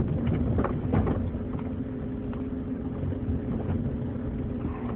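Cabin road and engine noise of a 2003 GMC Envoy driving over potholes, with a sharp clunk from the passenger-side front end right at the start and another about a second in, followed by a few fainter knocks.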